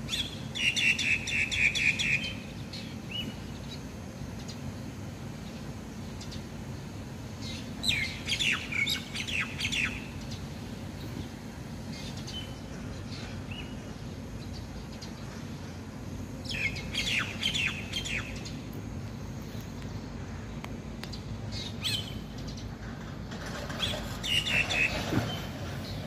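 A starling singing in four bursts of quick, chattering high notes, each lasting about two seconds and coming roughly every eight seconds, over a steady low background rumble.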